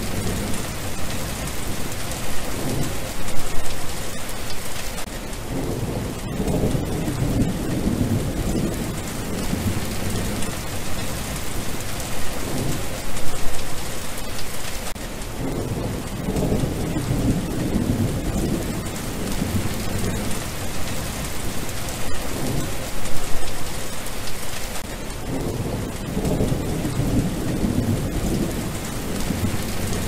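Steady rain falling on wet ground, with low thunder rumbles swelling about every ten seconds and the same pattern repeating through.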